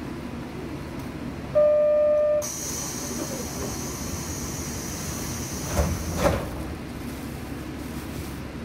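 Diesel railcar running along the track, heard from on board. About a second and a half in, the horn sounds one loud, steady note for nearly a second. A high, steady squeal follows for about four seconds and cuts off, with two clacks from the wheels near its end.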